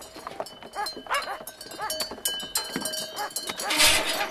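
A sheep flock calling in a milking pen: short bleats one after another, with faint steady ringing tones behind them. Near the end comes a short, loud rush of noise.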